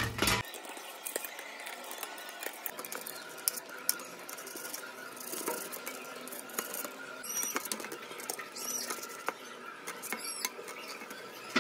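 Kitchen knife cutting raw chicken breast on a stainless steel plate: soft clicks and scrapes of the blade against the metal, with a few short high squeaks in the second half.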